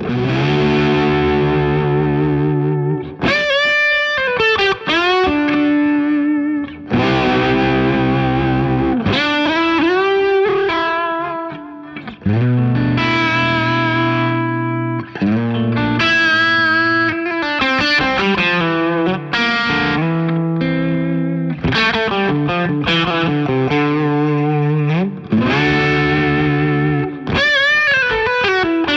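James Tyler Studio Elite HD electric guitar played through distortion and effects. Ringing, held chords alternate with single-note lead phrases that use string bends and vibrato, with brief pauses between phrases.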